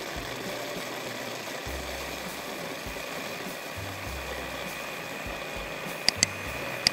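Electric mini chopper running steadily with a high motor whine as its blade grinds María biscuits into crumbs. Two pairs of sharp clicks come near the end.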